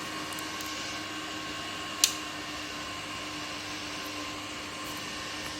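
Melzer inverter welding machine powered on, its cooling fan whirring steadily with a constant electrical hum and whine; it runs again now that its bulged electrolytic capacitor has been replaced. One sharp click about two seconds in.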